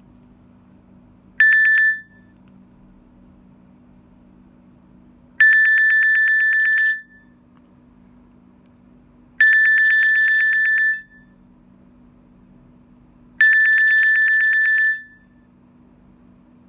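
Nokia N82 mobile phone ringtone playing through the phone's loudspeaker: a rapid trilling electronic ring. It comes as one short burst, then three rings of about a second and a half each, spaced four seconds apart.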